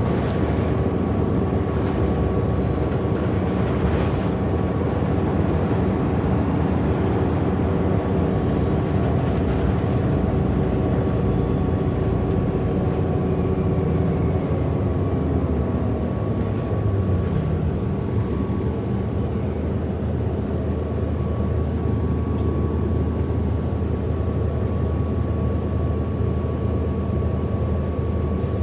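Interior of a 2008 Orion VII NG hybrid-electric bus under way: a steady drivetrain hum with a thin high whine from the hybrid drive's electric motor. About 15 seconds in, the motor tones slide down in pitch as the bus slows, settling into a steadier low drone.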